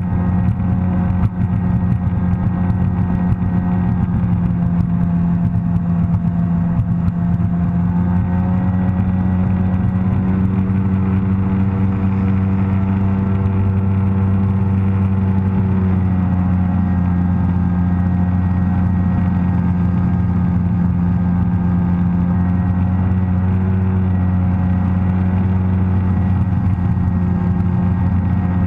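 Sea-Doo personal watercraft engine running at a steady cruise of about 30–35 mph: a loud, steady low drone whose pitch drifts only slightly.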